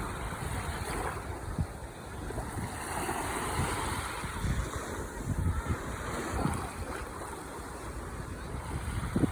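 Ocean waves washing onto the shore in a continuous surf wash that swells about three seconds in, with wind buffeting the microphone in irregular low rumbles.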